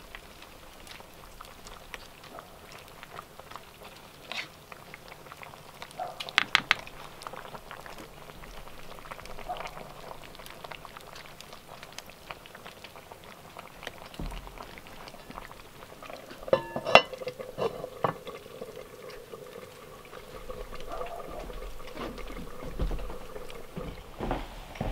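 Pot of liquid bubbling and simmering, with scattered light clinks and knocks; a quick clatter comes about six seconds in and a sharp knock about seventeen seconds in.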